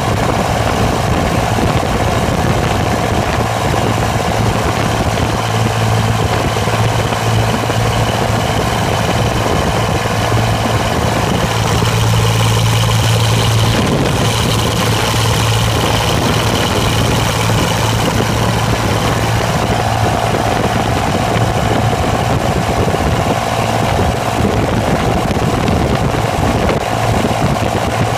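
1963 Fordson Super Dexta tractor's three-cylinder diesel engine running steadily while driving along the road, heard from the driver's seat close to the upright exhaust stack.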